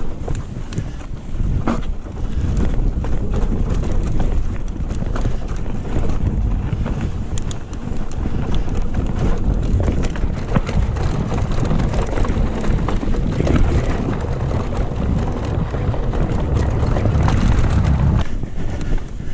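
Mountain bike riding over sandstone slickrock: heavy wind buffeting on the microphone, with tyres rumbling over the rock and frequent small clicks and rattles from the bike.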